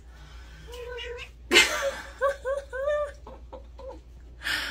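Domestic cat meowing as its paws are booped: a short call about a second in, a loud breathy burst, then three quick rising-and-falling chirping meows, with another breathy burst near the end.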